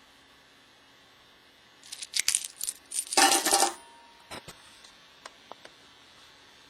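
Small metal objects clinking and jingling against each other and a hard surface: a run of sharp clicks about two seconds in, a louder jingle just after, then a few light ticks as they settle.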